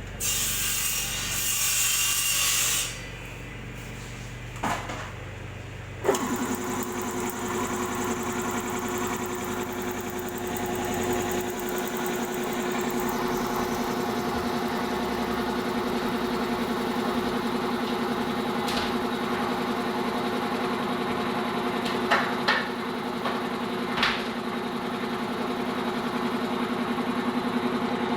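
An air compressor's newly rewound 1.5 hp electric motor, switched on for its test run, starts suddenly about six seconds in and runs with a steady even hum. Before it starts there is a few seconds of hiss and a single click, and a few sharp clicks sound near the end.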